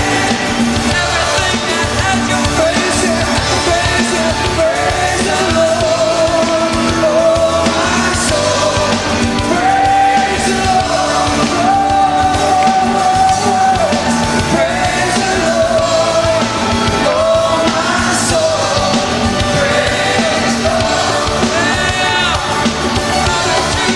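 Live band music with singing over grand piano and electric guitars, in a rock style, with long held, wavering melody notes.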